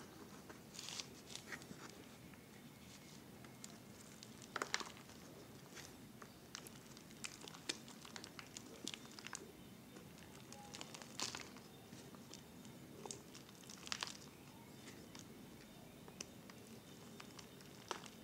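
Faint crackling and crinkling of a thin plastic bottle handled by the fingers, with scattered soft clicks and rustles as soil is pushed into its neck.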